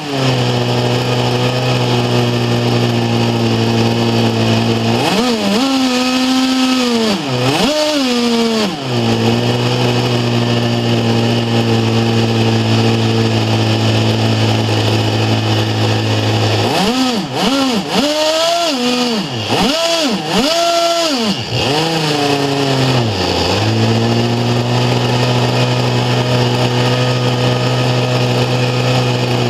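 Webra 61 two-stroke glow engine driving a RamTec ducted fan with a cut-down RK40 rotor, running steadily at a high pitch on a test stand. Its speed is swung up and down several times about five seconds in, and again over several seconds in the middle, before settling back to a steady run.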